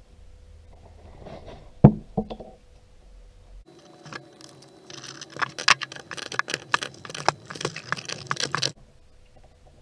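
Metal handling noise from a wrench and brass air fittings on a cluttered worktable: a couple of knocks about two seconds in, then a few seconds of irregular clinks and rattles that stop abruptly near the end.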